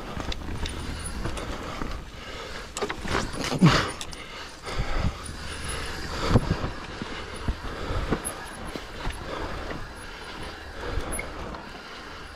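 Mountain bike descending a rough trail: a steady rumble of tyres over dirt and roots with chain and frame rattle. Several sharp knocks from hits, the loudest about three and a half seconds and six seconds in.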